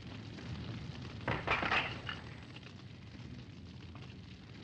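A steady low rumble, with a short burst of cracking noise about a second and a half in.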